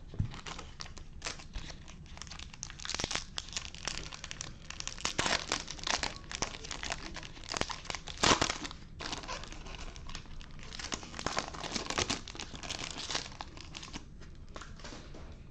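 Shiny foil wrapper of a Topps Chrome baseball card pack being torn open and crinkled off the cards in a long run of crackles, with the sharpest rip about eight seconds in. It quiets near the end.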